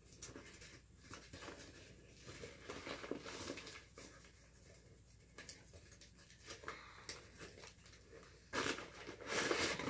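Paper takeout bags and food wrappers rustling and crinkling in short bursts as food is unpacked, with a louder stretch of rustling near the end.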